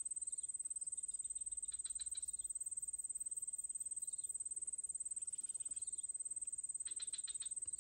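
A steady high-pitched insect drone, pulsing rapidly, with short runs of faint clicking about two seconds in and again near the end.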